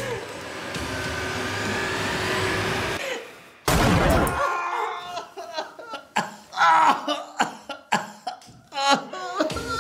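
A steady swelling noise that stops suddenly about three seconds in, then a loud hit, then a man laughing in short, ragged bursts.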